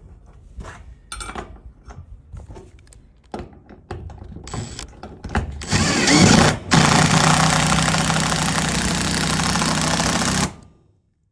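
Light clicks and knocks of metal parts being set down on a metal roof, then a Makita cordless driver runs steadily for about four seconds, driving a self-drilling hex-head tech screw through a metal base plate into the roof sheeting, and stops suddenly.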